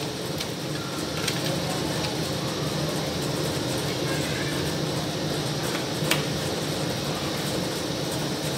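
Steady mechanical hum of workshop machinery, with a few sharp clicks and taps from handling tools and wooden lantern parts; the loudest snap comes about six seconds in.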